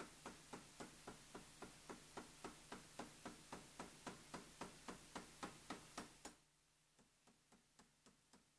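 Power hammer running in a steady series of blows, about three to four a second, its ram striking a handheld tool held on hot steel bar on the bottom die. After about six seconds the blows carry on at the same pace but fainter, as the ram strikes a small handheld cutting tool on a cold bar.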